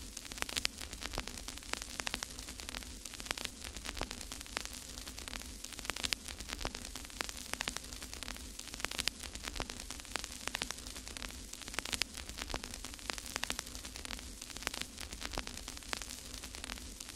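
Steady crackling static: dense, irregular clicks over a hiss, with a low hum underneath.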